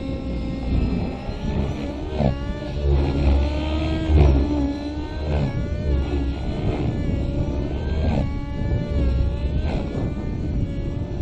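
MAX-55HZ-R two-stroke glow engine of a nitro RC helicopter, fitted with an MS55-3D ZERO.SP tuned muffler, running hard in aerobatic flight. Its pitch rises and falls again and again as the load changes with the manoeuvres.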